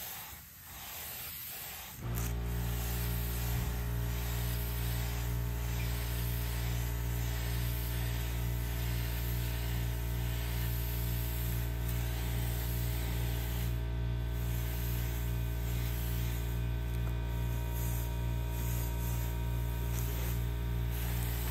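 Air compressor motor switching on abruptly about two seconds in and running with a steady hum, as the air spray gun draws air and hisses.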